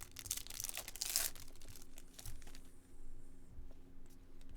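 A Topps Chrome baseball card pack's foil wrapper being torn open, a rustling tear lasting about a second, followed by faint crinkling and light ticks of the wrapper and cards being handled.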